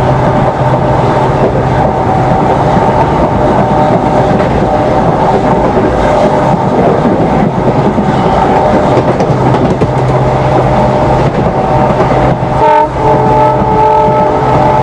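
EMD WDP4D diesel locomotive's two-stroke V16 engine humming steadily at speed, several held tones over the rumble of the train on the track.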